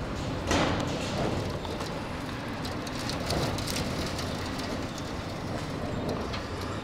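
Strong gusty desert wind buffeting the microphone: a steady low rumble that surges in a louder gust about half a second in, with scattered faint ticks through it.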